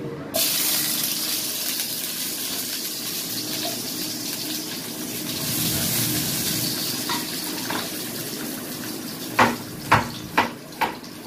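Ginger slices sizzling in hot sesame oil in a frying pan, the hiss starting suddenly about half a second in as the ginger goes into the oil. Near the end a wooden spatula knocks against the pan four times.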